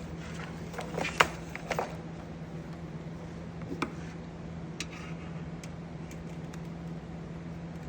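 Small clicks and taps of wires and a screwdriver being worked on the screw terminals of a switching power supply, loudest in a cluster about a second in, then a few sparse ticks, over a steady low hum.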